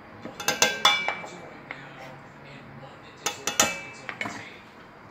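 Sharp clinks and knocks on a stainless steel cooking pot in two quick clusters about three seconds apart, the metal ringing briefly after each.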